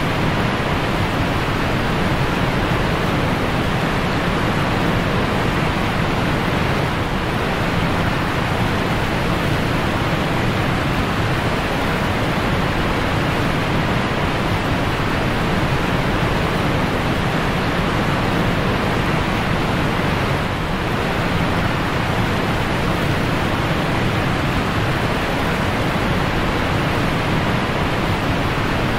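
Steady rushing water noise from the aquarium's filter or aeration, running evenly with no distinct events.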